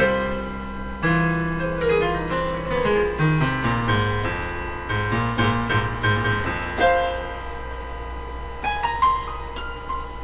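Keyboard music played solo: a run of notes stepping down in the bass, then a held chord with a few high notes struck over it near the end.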